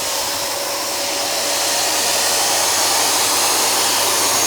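Electric vacuum cleaner running steadily with a rushing motor-and-airflow noise, getting a little louder during the first few seconds.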